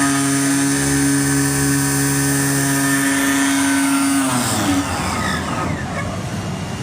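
Digital CNC flexible-material cutting machine running with a steady multi-tone whine, then winding down about four seconds in, its pitch falling away into a rougher rumble.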